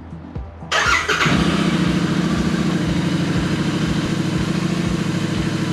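Royal Enfield Interceptor 650's parallel-twin engine on its stock exhaust starting up: it fires with a sudden loud burst under a second in, then settles into a steady idle.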